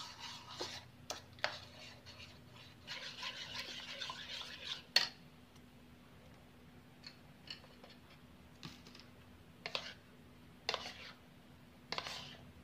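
Metal spoon stirring and scraping a flour batter in a plastic bowl, with a longer run of stirring a few seconds in that ends in one sharp knock of the spoon against the bowl. Then a few brief, spaced-out scrapes as pieces are turned in the batter.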